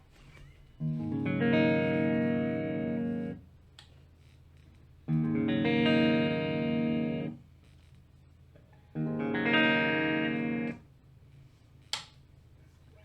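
Squier Classic Vibe Starcaster semi-hollow electric guitar, amplified: three chords, each struck and let ring about two seconds, with short pauses between them. A short click comes near the end.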